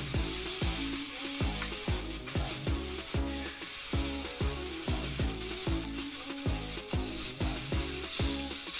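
Sauce-coated tempeh sizzling on a hot non-stick grill pan while the pieces are turned with tongs, under background music with a quick, steady beat.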